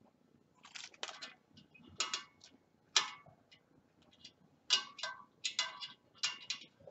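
Spoke wrench working the nipples of a spoked motorcycle wheel during tensioning: irregular sharp metal clicks and light clinks, about a dozen, as the tool is fitted and turned on each nipple.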